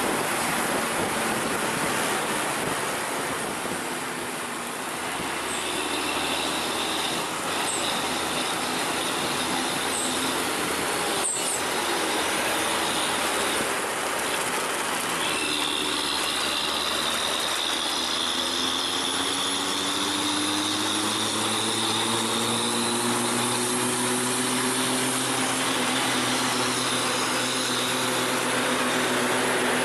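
Heavy bus engine running under load over steady tyre and road noise. In the second half the engine note slowly rises as it accelerates, with a high whine on top.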